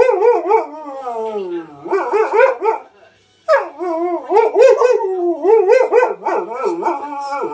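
Malamute-husky cross dog howling and 'talking': a loud, wavering woo-woo whose pitch bobs up and down several times a second. It breaks off briefly about three seconds in, then carries on.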